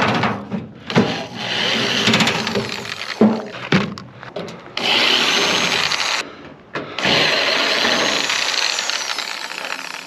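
Power drill running in several bursts of a few seconds each, driving screws out of a microwave's sheet-metal casing, with clicks and knocks between the bursts.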